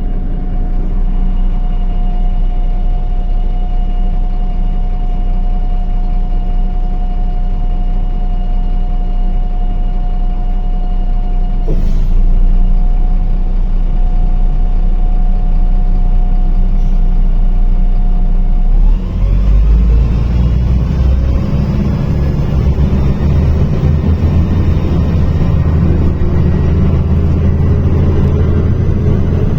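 MAZ-105 city bus heard from inside: a steady engine hum with a thin whine, and a single knock about twelve seconds in. About nineteen seconds in the bus moves off, and the engine note turns louder and rougher with rising whines as it accelerates.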